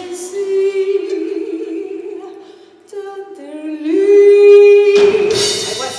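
A woman singing long held notes live with almost no accompaniment: one note fades away about halfway through, then she slides up into another long held note. About five seconds in, the band comes in loudly.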